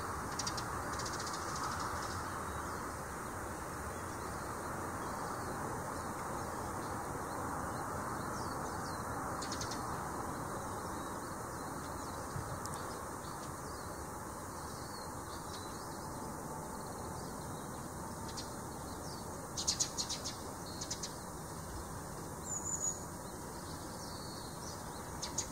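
Short high chirps of Eurasian tree sparrows, a quick cluster about twenty seconds in and a few scattered ones near the end, over a steady background hiss.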